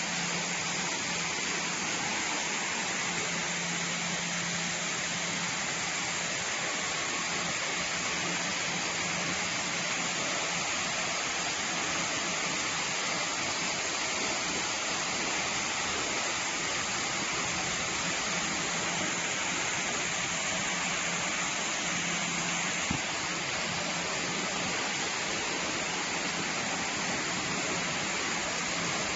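Wood pellet production line machinery running steadily: a constant, even, hiss-like din with a low steady hum underneath, and a single brief knock late on.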